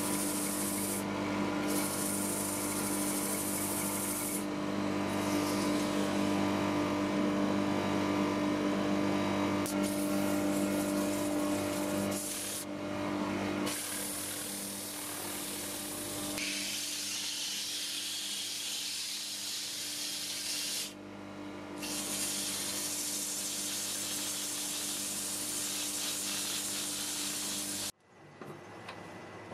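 Wood lathe running steadily, its motor humming, with the hiss of abrasive paper sanding the spinning Leylandii vessel. The hiss drops out briefly a few times as the paper is lifted, and all of it cuts off suddenly near the end.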